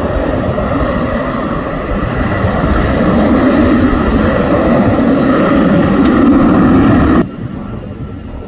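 Jet airliner engines running loud and steady, a deep rumble with a high whine on top. About seven seconds in the sound drops suddenly to a much quieter rumble.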